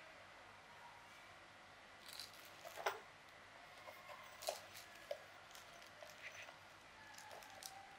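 Faint scattered clicks and light taps, like small objects being handled, the loudest just before three seconds in, over a quiet room.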